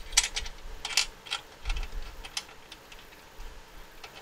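Metal clicking and light rattling as a cable clamp connector and its locknut are fitted into a knockout in a steel breaker box. A series of sharp clicks, the loudest near the start and most in the first two and a half seconds.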